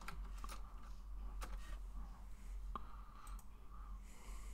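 Computer keyboard keystrokes and mouse clicks: a handful of separate sharp clicks spread through the few seconds, over a low steady hum.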